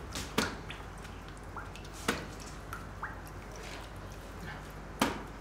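A wooden pressing board being set and shifted onto a fresh cheese in its wooden hoop: three sharp wooden knocks, the loudest near the end, with a few faint drips of draining whey between them.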